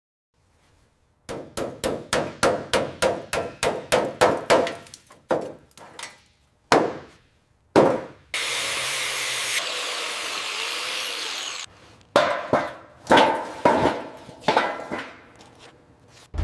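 Hand-tool work on the car: a quick run of rhythmic strokes, about three a second, each dying away. A few single strokes and about three seconds of steady hissing follow, then another run of strokes.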